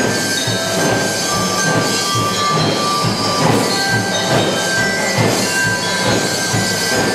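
A drum and lyre band's drums beat a steady marching rhythm, about two to three beats a second, under the loud noise of a crowd. Long high tones ring over the beat.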